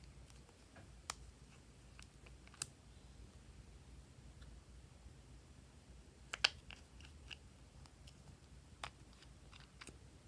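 Slime being worked by hand, giving scattered sharp sticky clicks and pops, with a small cluster about halfway through, over a faint low hum.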